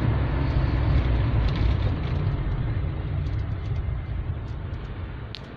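A person snoring: a loud low rumble that fades away over the last second or two.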